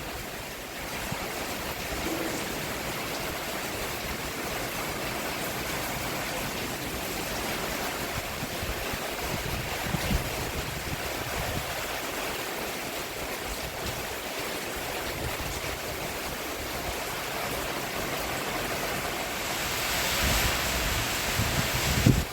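Steady rain falling on a roof, an even hiss of drops with no distinct patter, swelling a little louder near the end.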